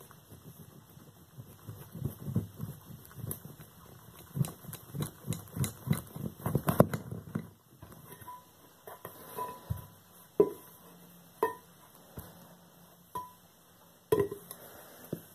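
Boots stamping on and crushing a silver-plated teapot: a rapid run of dull knocks for the first several seconds. Then, from about eight seconds in, come half a dozen separate sharp metallic clinks, each with a short ring.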